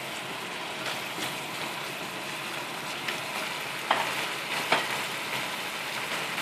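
Minced chicken, shallot and garlic sizzling steadily in hot oil in a nonstick frying pan, stirred with a wooden spatula at first. Two sharp knocks come about four seconds in.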